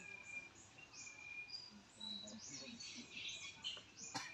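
Forest birds chirping: a stream of short high chirps with a short, steady note repeated every second or so. A single sharp click comes near the end.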